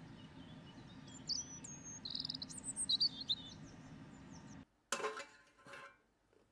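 Small birds chirping and whistling over a steady low background hum, which cuts off abruptly. About five seconds in, flour is tipped from a bowl into a bread-machine pan with a short soft rustle, and a smaller second rustle follows.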